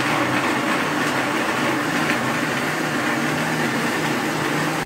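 Mondial countertop blender motor running steadily at full speed, puréeing a liquid mix of corn, onion, garlic and cream, with a low wavering hum under the dense whirring; switched off suddenly at the very end.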